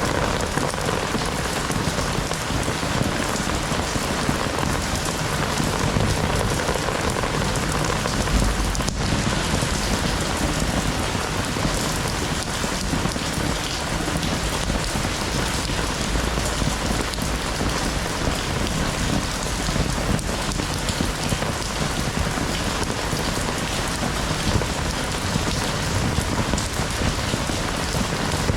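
Heavy rain falling steadily, a dense, even hiss of drops on the ground and surfaces. Low rumbles swell under it about eight seconds in and again around sixteen seconds.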